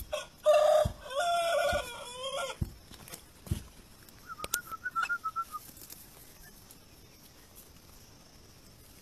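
A young rooster gives a loud, drawn-out call of several pitched segments for about two seconds as a puppy bites at it, then a short run of softer clucks about four seconds in. A few dull thumps from the scuffle fall between.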